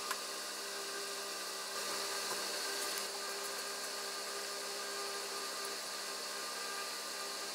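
Steady background hiss with a faint mechanical hum, as of a small fan or appliance running, and a single light click right at the start.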